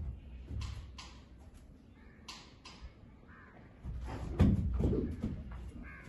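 Marwari horse moving about on a concrete stall floor: scattered hoof knocks and scuffs, with a louder cluster of thumps about four seconds in.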